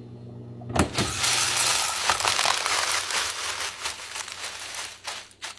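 A fridge snack dispenser hums briefly and clicks, then dried banana chips pour out in a long, dense crackling rattle that dies away near the end.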